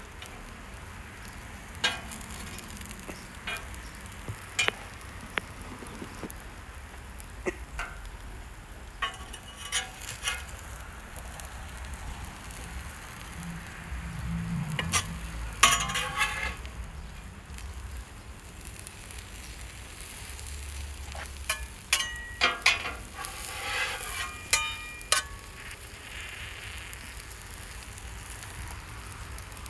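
Egg-battered toast sandwiches with cabbage sizzling on a hot steel flat-top griddle, with metal spatulas clacking and scraping against the griddle in several bursts, loudest about halfway through as the sandwiches are folded and turned.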